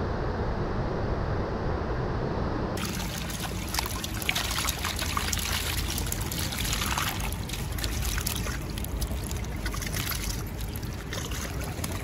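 Creek water trickling and running, with a fine, splashy hiss. For the first few seconds it is a steady low rumble instead, which cuts off abruptly about three seconds in.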